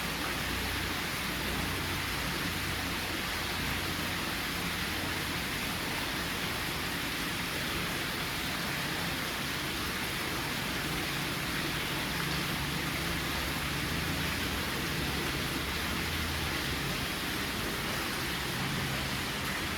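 Minka Aire Sundance ceiling fan running, heard as a steady rush of moving air with no motor hum or clicks.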